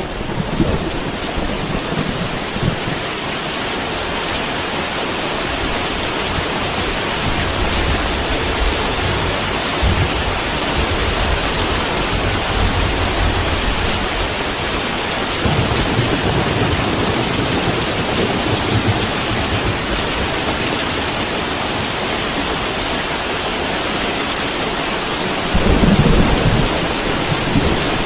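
Steady heavy rain with thunder rolling low in the background several times, the loudest rumble near the end.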